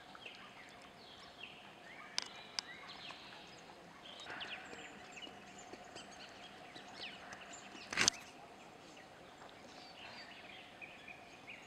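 Outdoor ambience of scattered short bird chirps over a low background hiss, with a faint steady hum and one sharp knock about eight seconds in.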